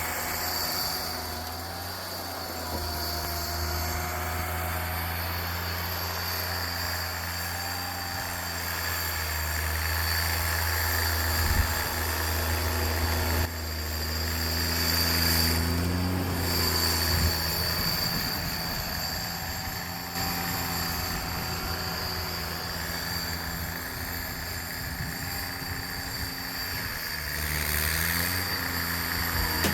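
1988 John Deere 322 garden tractor's Yanmar three-cylinder gas engine running under load, its pitch rising and falling as the load changes, with a single sharp knock about 12 seconds in.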